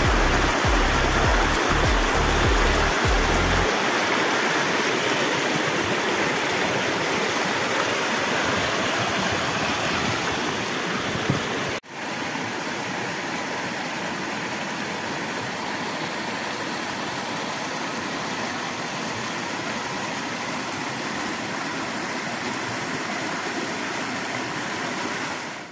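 Steady rushing noise of water, with a low rumble in the first few seconds. The sound drops out for an instant near the middle and comes back a little quieter.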